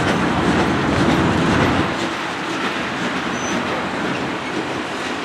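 A train rolling past, a steady rush of wheel-on-rail noise with some clacking. A deeper rumble is strongest for the first two seconds, then eases off.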